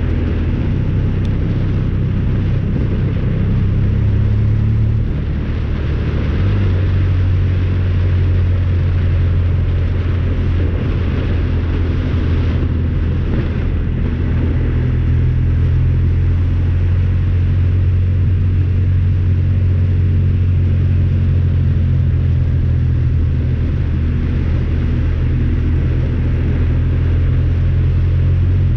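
Honda Talon 1000R side-by-side's parallel-twin engine running while driving, with a steady rushing noise over it. The engine note shifts a few times, most clearly with a step up about six seconds in.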